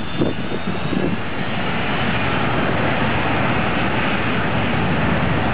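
Steady jet roar from an American Airlines McDonnell Douglas MD-80's rear-mounted engines as it rolls along the runway. The rushing noise grows a little louder about a second and a half in, with a few low buffeting pulses in the first second.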